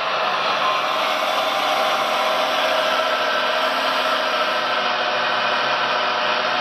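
RC model Liebherr 956 excavator's hydraulic system running, a steady whine, as the boom lifts the grapple.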